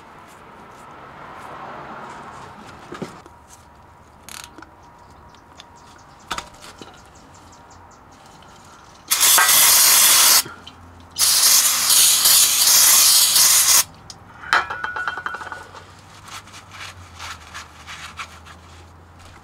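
Aerosol spray can of cleaner hissing in two long bursts, about nine and eleven seconds in, the second the longer, sprayed onto the rear differential housing. Small taps and rag rubbing are quieter around them.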